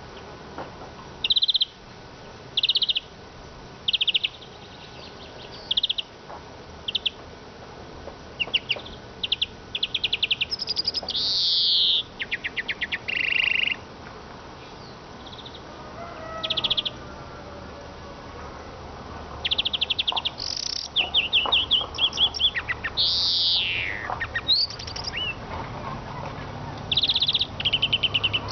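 Eurasian siskin singing: bursts of short high chirps and fast trills repeated with pauses, with a long downward-sliding wheeze near the end.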